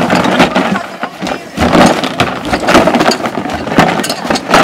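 Large painted cardboard boxes tumbled end over end across grass, making repeated, irregular thuds and knocks. The boxes are built to make noise when knocked about.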